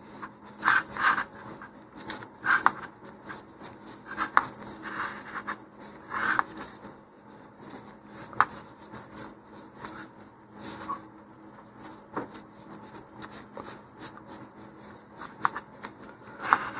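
Flat nylon shock cord being folded and bunched by gloved hands: irregular rustling and scraping of the webbing rubbing against itself and the gloves, with sharper scrapes every second or so.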